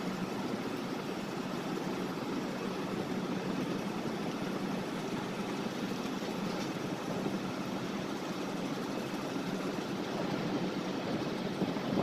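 Steady drone of heavy port machinery: an even rush of noise with a faint low hum that holds level throughout.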